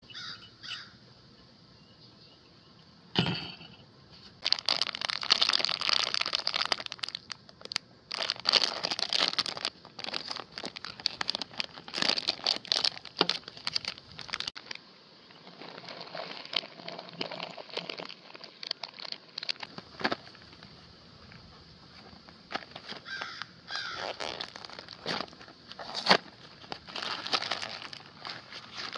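Foil candy bags and packaging crinkling as they are handled and opened, in long bursts with a quieter stretch in the middle. A single sharp knock about three seconds in.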